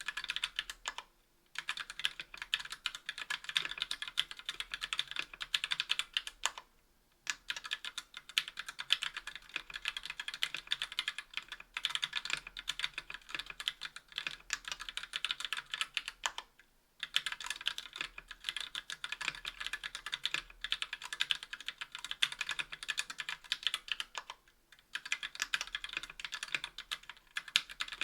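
Fast, continuous typing on a KBDfans Tofu60 aluminium 60% mechanical keyboard with TTC Gold V2 Red linear switches, aluminium plate and GMK Jamon keycaps: a dense run of key clacks, broken by short pauses about four times.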